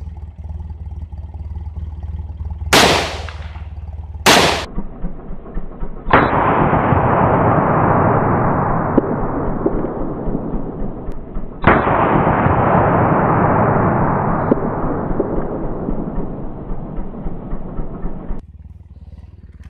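Two .223 rifle shots from an AR-15 about a second and a half apart, then two long, muffled, slowed-down replays of a shot. Each replay starts with a sudden crack and fades over about six seconds, and the second one cuts off abruptly.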